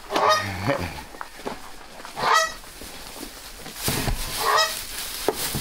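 Farm animals calling three times in short, harsh calls about half a second each, with hay rustling in between.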